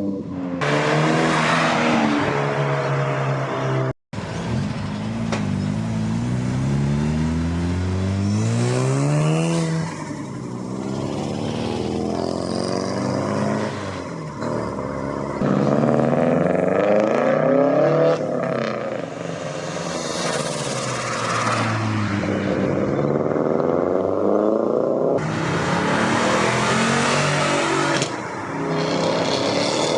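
Several car engines and exhausts revving and accelerating hard one after another as the cars pull away and pass, their pitch climbing repeatedly through the gears. The sound cuts out for a moment about four seconds in.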